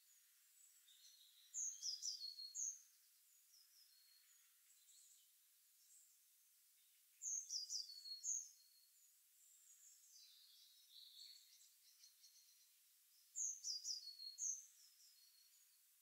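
Songbirds in woodland: one bird sings a short, high song phrase of quick descending notes three times, about six seconds apart, with fainter chirping from other birds in between.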